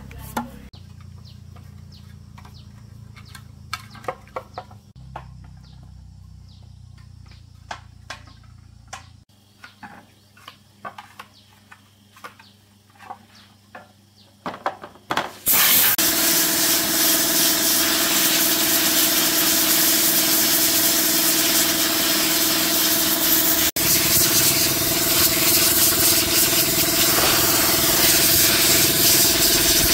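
Scattered light clicks and knocks of tools and metal parts being handled over a low hum. About halfway in, a machine starts and runs loudly and steadily, with a strong hiss and a steady hum.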